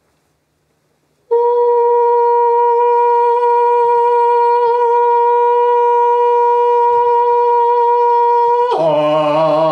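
A man's voice holding one long, clear, steady high note, meant as a celebratory sound; about nine seconds in it switches to a lower, wavering tone meant as a sadder sound.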